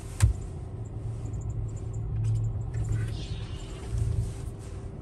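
Car driving slowly, heard from inside the cabin: a steady low engine and road rumble, with one sharp thump about a quarter second in.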